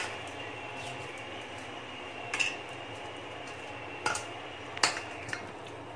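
Turmeric-coated fish pieces being mixed by hand in a stainless-steel bowl, with a handful of short, sharp clinks against the bowl's metal.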